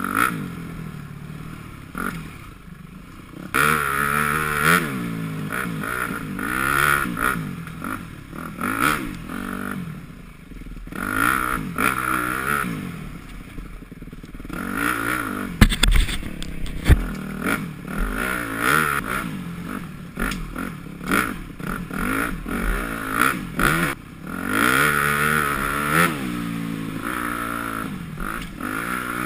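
2011 Yamaha YZ250F four-stroke single-cylinder dirt bike with an FMF PowerCore 4 exhaust being ridden, its engine revving up and dropping back again and again between throttle openings and shifts. A few sharp knocks about halfway through.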